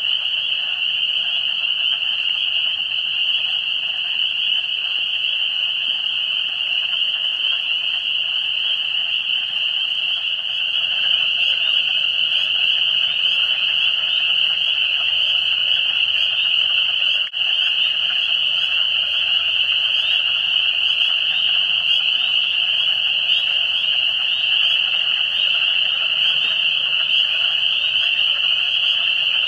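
Dense night chorus of spring peepers, their high peeps blending into one continuous shrill ring, with a softer layer of other frog calls beneath. The sound drops out briefly a little over halfway through.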